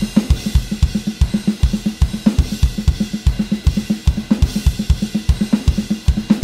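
Electronic drum kit played in a steady 16th-note cymbal pattern. The cymbals ring continuously over regular bass drum hits, with snare strokes mixed in.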